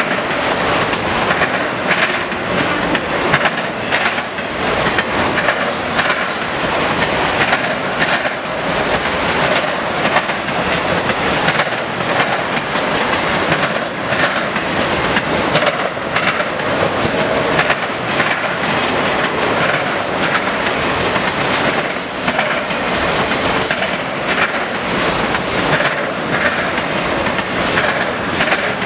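Autorack freight cars rolling past close by, their wheels clattering over a railroad diamond crossing in a steady run of clicks and bangs, with brief high-pitched wheel squeals now and then.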